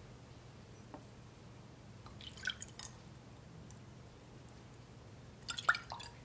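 Kitchen handling sounds of a soft, wet mixture: a faint click about a second in, then two short clusters of small clicks and squishes, around two and a half seconds in and near the end.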